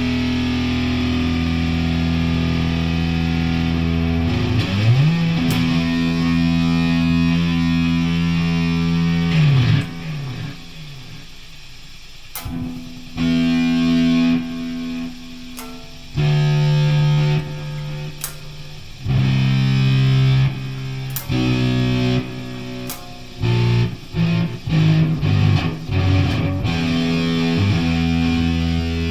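Distorted guitar played through effects: for about ten seconds, low sustained droning notes with swooping pitch bends, then choppy stop-start bursts of chords broken by short quieter gaps.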